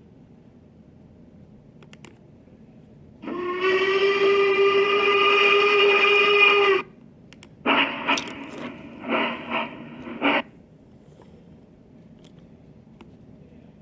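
Sound effects played back: a steady horn- or whistle-like tone lasting about three and a half seconds, then after a short pause a rougher, noisier effect with several loud pulses that cuts off abruptly.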